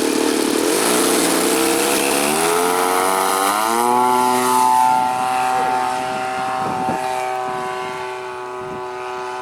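RC airplane's 30cc gas two-stroke engine at full throttle on the takeoff run, its pitch rising over a couple of seconds as the plane gathers speed and lifts off. It then holds a steady note and fades as the plane climbs away.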